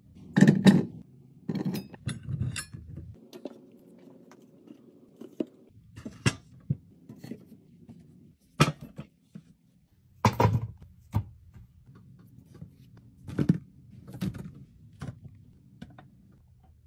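Irregular knocks and clatters of containers and packages being handled and set down while restocking a fridge, with sharp knocks about a second in and again near 6, 9, 10 and 13 seconds.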